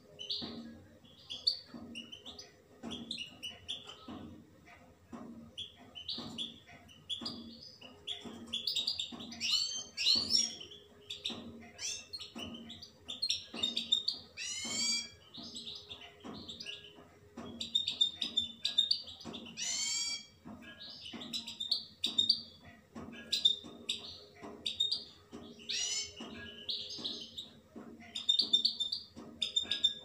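Caged European goldfinch singing: a long run of rapid twittering chirps and trills, broken by a few loud sweeping notes around the middle.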